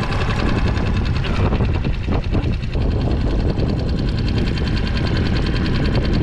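Small gasoline outboard motor on a solo skiff running steadily, with an even low rumble.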